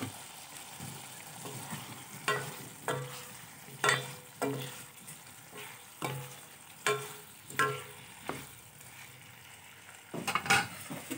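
A spatula knocking and scraping against a steel pan as fried potato wedges are stirred through thick spiced masala. Sharp knocks come about once or twice a second, with a quick cluster near the end, over a low frying sizzle. This is the potatoes being sautéed (kosha) in the masala.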